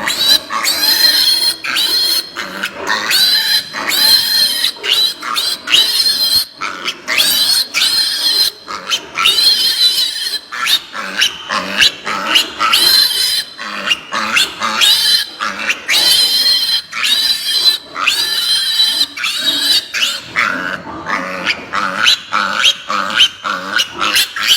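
Piglets squealing in pain, one shrill scream after another with barely a pause, during castration and tail docking done without anaesthesia.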